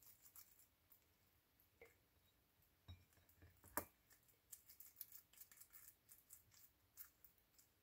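Near silence with faint small clicks and squishes of sticky cooked glutinous rice being pressed and rolled into a ball between wet hands.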